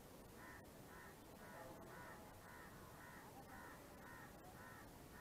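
Faint crow cawing, a run of short repeated caws at about two a second.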